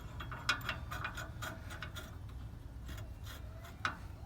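Hand tools working on a truck's rear suspension hardware: a run of irregular metallic clicks and clinks, like a ratchet wrench and parts being handled, over a steady low hum.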